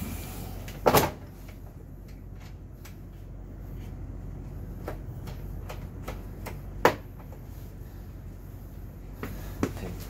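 Two sharp knocks, about a second in and again near the seven-second mark, with a few fainter clicks between, as parts are handled and fitted by hand at a motorcycle's front end around the steering stem. A low steady hum runs underneath.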